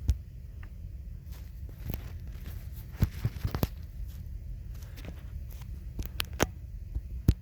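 Someone moving about and handling things in a crawl space: scattered knocks, clicks and scrapes over a steady low rumble, in a cluster about three seconds in, another about six seconds in, and one sharp knock near the end.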